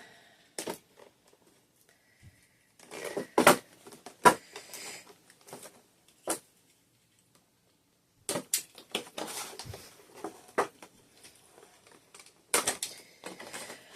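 Packaging of a boxed doll being handled: cardboard and plastic crinkling, with sharp clicks and taps in irregular bursts and short quiet gaps between them.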